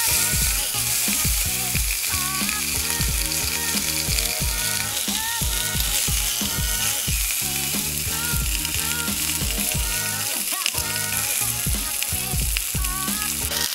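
Butterflied mullet sizzling skin-down in a very hot stainless steel frying pan, a steady hiss. Background music with a steady beat plays along with it.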